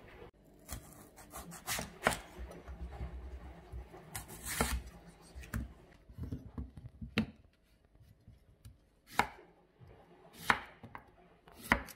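Kitchen knife slicing through peeled kohlrabi on a wooden chopping board: a series of irregular cuts, each ending in a sharp knock of the blade on the board, roughly one every second or two.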